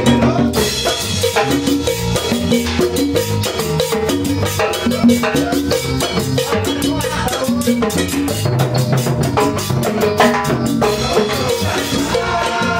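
A live band rehearsing a cumbia: electric bass, electric guitar and hand-played drums keeping a steady, busy beat.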